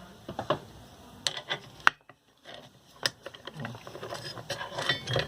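Scattered clicks, knocks and scraping from a ceiling fan motor's rust-seized end cover being worked loose, with a busier run of clicks and short squeaks near the end as it starts to give.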